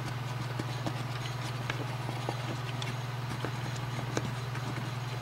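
Small, irregular clicks and scrapes of a wooden stick wrapped in an alcohol swab scrubbing the metal body of a Lionel postwar knuckle coupler, over a steady low hum.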